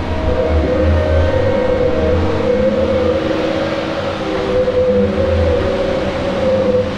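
Tigercat 234B log loader's diesel engine and hydraulics running under load as the grapple swings. A steady whine wavers slightly in pitch, and the engine surges several times.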